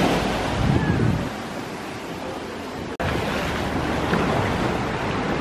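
Small ocean waves breaking and washing up the sand in a steady hiss of surf, with a momentary drop-out about three seconds in.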